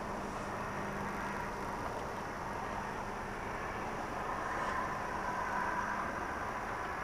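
Steady background hiss with a faint low hum and no distinct event.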